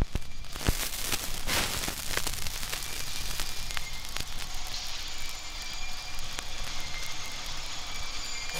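Steady crackling hiss with scattered sharp clicks and a few faint high tones.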